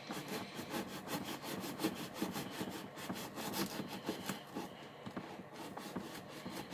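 Packaging being worked open by hand: a rapid run of scratchy rubbing and scraping strokes, several a second, as the cardboard and wrapping are pulled and torn.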